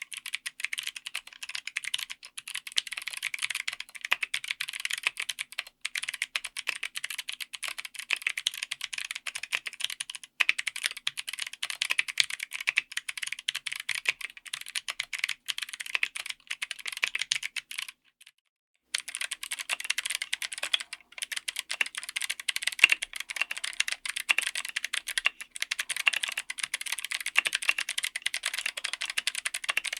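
Mechanical keyboard being typed on quickly and steadily, a dense run of keystroke clicks. The typing stops briefly about eighteen seconds in, then starts again.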